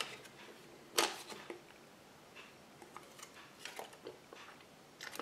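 Small plastic parts of a Kinder Surprise drawing-pen toy being handled and clicked together: a few sharp clicks, the loudest about a second in, with fainter taps between.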